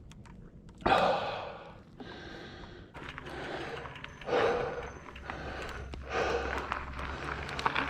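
A mountain biker breathing hard from exertion: a series of heavy, gasping breaths about every second and a half, the loudest about a second in.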